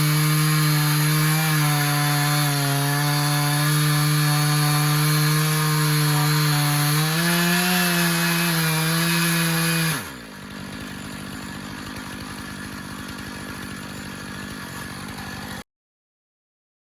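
Stihl MS 500i fuel-injected two-stroke chainsaw on a Granberg Alaskan mill running at full throttle, ripping through a cedar log, its pitch rising slightly near the end of the cut. About ten seconds in the throttle drops and the saw idles for several seconds, then the sound cuts off abruptly.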